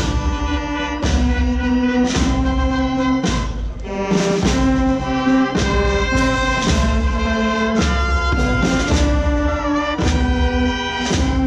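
A processional brass band playing a slow march: trumpets and trombones hold chords over a drum beat that falls about once a second.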